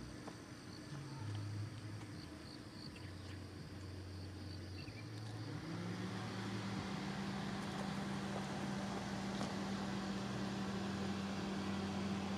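Steady low engine hum of a motor vehicle, its pitch rising about halfway through and then holding. Faint insects chirp over the outdoor ambience.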